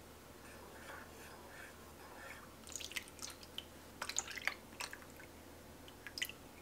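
Faint sounds of sweetened milk being poured and dripping from a stainless steel measuring cup into a small plastic container. Several light clinks of the metal cup against the containers come in the second half.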